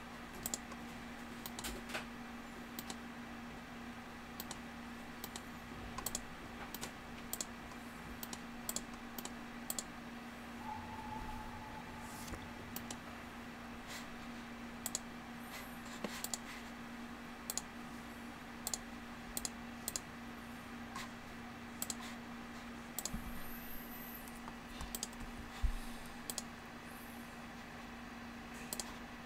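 Computer keyboard being typed on, with irregular key clicks spread across the whole stretch over a steady low hum.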